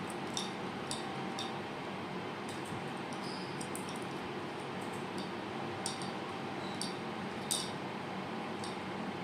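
About ten light, sharp clicks and taps scattered irregularly over a steady background hiss, typical of a small pet bird's beak or claws tapping on a surface.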